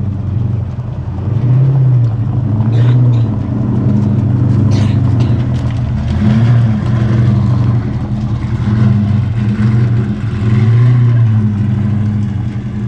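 Car engine running, revving up and down repeatedly with a low steady tone, and a couple of brief sharp cracks partway through.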